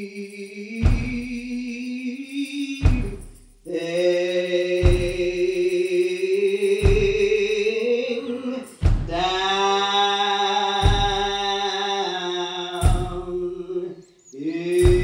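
Slow, drawn-out metered hymn singing in the Black church tradition: voices hold long notes and slide slowly from pitch to pitch. A deep thud falls about every two seconds and keeps the time.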